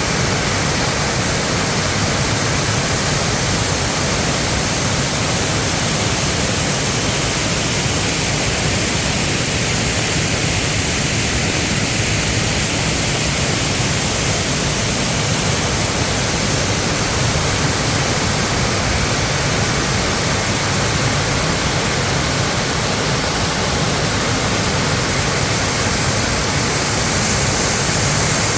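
Mountain valley stream rushing strongly, a steady even roar of water. It is running high, which the uploader puts down to the rain that is falling.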